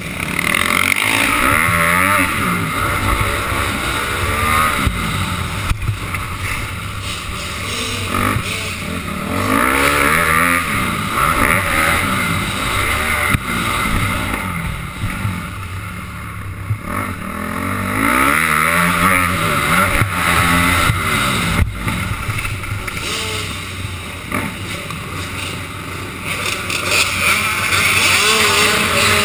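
Dirt bike engine revving up and down over and over, its pitch climbing and falling as it accelerates, shifts and backs off for the turns.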